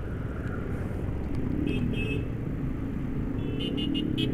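Motorcycle engine running steadily under a low rumble of wind and road noise. Two clusters of short high beeps come through, one around the middle and one near the end.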